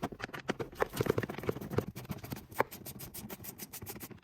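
Rapid clicking of a socket ratchet undoing the small bolts that hold a car's glove box, with light scraping of the tool against the trim. The clicks come fast and fairly evenly toward the end.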